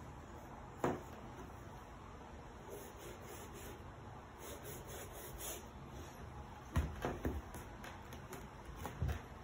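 Paintbrush bristles scrubbing paint onto a canvas in short rasping strokes. There are a few dull knocks, one about a second in and a cluster near the end.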